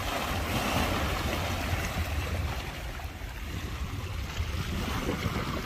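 Sea waves washing and splashing over the rocks of a breakwater, a steady rushing with a low rumble of wind on the microphone.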